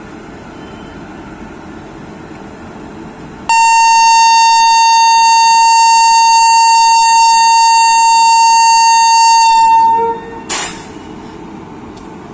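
WAP-7 electric locomotive's horn, sounded for departure: one long steady blast of about six seconds, starting about three and a half seconds in over a low steady hum. A short burst of hiss follows just after the horn stops.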